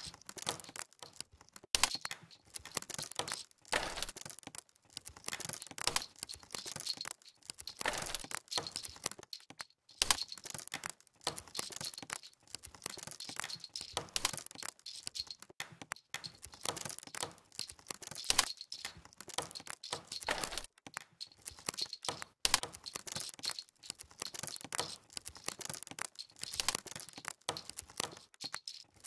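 Dense, irregular crackling and popping like a wood campfire, with a louder sharp crack about every two seconds.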